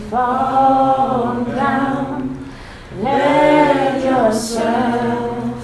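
Voices singing a cappella in long held notes: two phrases, with a short break about two and a half seconds in.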